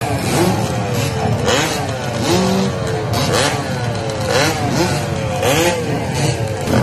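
A pack of motocross dirt bikes revving together at the start, their throttles blipped over and over so the engine pitch keeps rising and falling in overlapping waves.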